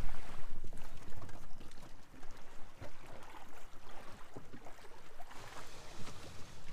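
Shallow water splashing and lapping around an inflatable dinghy as it runs onto a sandy beach and is hauled ashore through the shallows, loudest in the first second.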